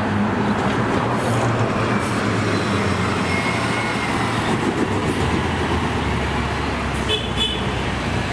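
City bus engine running amid road traffic noise, with a steady low hum under a noisy wash. A brief higher tone, like a horn, comes near the end.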